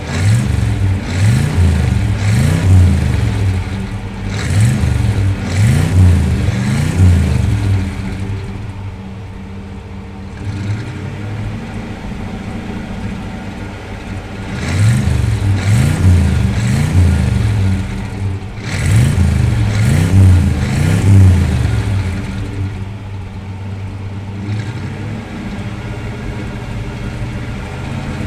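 1951 Chevrolet 3100 pickup's 350 cubic-inch GM crate V8 revved in two spells of quick repeated blips, each lasting about eight seconds, dropping back to a steady idle between them and for the last several seconds.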